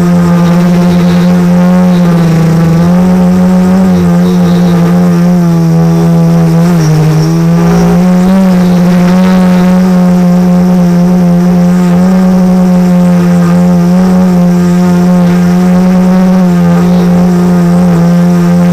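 Quadcopter's electric motors and propellers droning loud and steady, heard from the camera on board; the pitch dips briefly a couple of times as the throttle changes during manoeuvres, then settles back.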